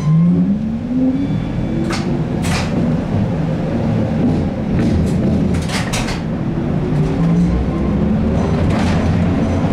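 ZiU-682G trolleybus traction motor whining and rising in pitch as it pulls away and accelerates, heard from inside the cabin over the body's rumble. The rise comes twice, at the start and again from about halfway, with sharp clicks and rattles about 2, 6 and 9 seconds in.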